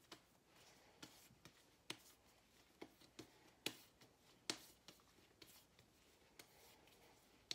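Near silence broken by faint, soft clicks and smacks, about one a second at uneven spacing, from bread dough being shaped and tucked into a ball between the hands.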